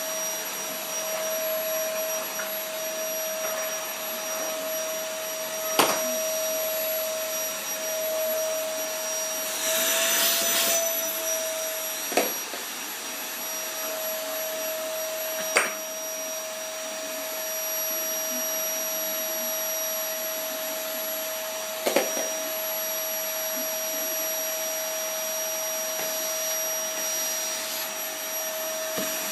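Vacuum cleaner running steadily with a constant whine. Four sharp knocks come through it, and the hiss rises briefly about ten seconds in.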